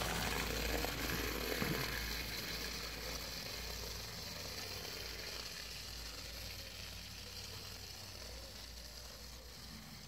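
Hornby clockwork Thomas's wind-up motor whirring as it pulls its wagons rattling along the OO-gauge track, loudest as it passes and fading steadily as it runs away.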